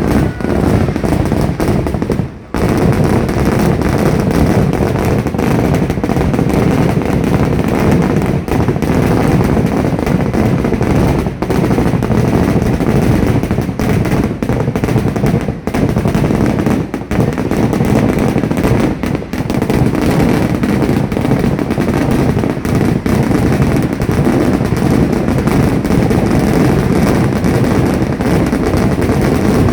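Kerala temple-festival fireworks (vedikkettu): a loud, dense, unbroken barrage of firecracker explosions going off in rapid succession, with one brief gap about two seconds in.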